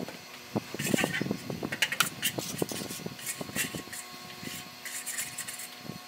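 A metal trowel or edging tool scraping and tapping along wet sand-and-cement render as a moulding is shaped. The scrapes are short and irregular and begin about half a second in.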